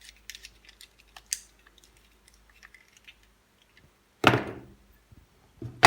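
Faint clicks and small handling noises of wires being fitted into a light switch's terminals, then one loud, short rustling knock about four seconds in.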